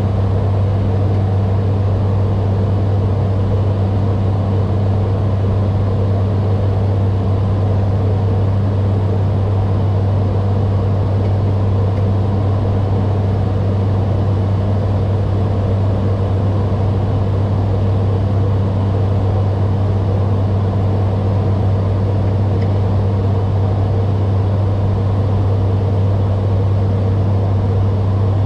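Steady drone of an ATR 72-600's twin turboprop engines and propellers in flight, heard inside the cockpit: a deep, even hum under a rush of air noise.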